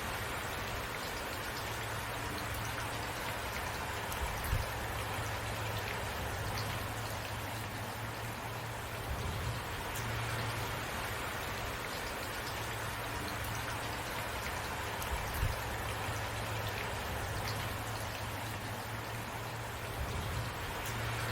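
Steady rainfall, with a low hum underneath and two louder taps, about four and a half and fifteen seconds in.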